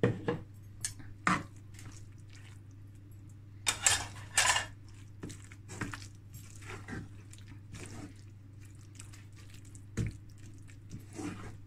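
Wooden spatula stirring minced chicken and tomato sauce in a nonstick frying pan, with scattered scrapes and knocks against the pan. The loudest cluster comes about four seconds in.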